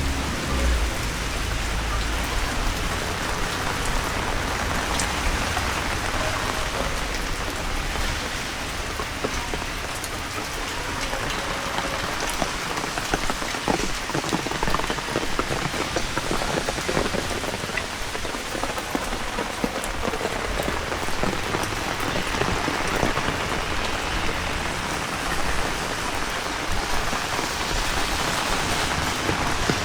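Heavy rain falling steadily: a dense, even hiss with many separate drops hitting nearby surfaces.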